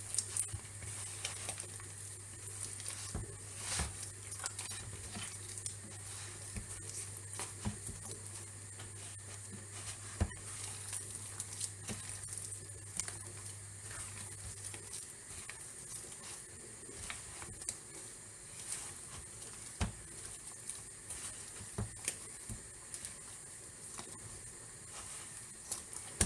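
Hands squeezing and kneading raw ground meat for meatballs, mixed with egg whites, in a plastic bowl: irregular wet squelches and soft slaps.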